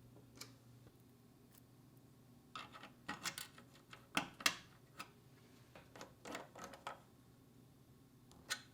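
Irregular light clicks and knocks of small hard parts being handled and fitted together by hand, over a faint steady low hum. The sharpest knock comes about halfway through.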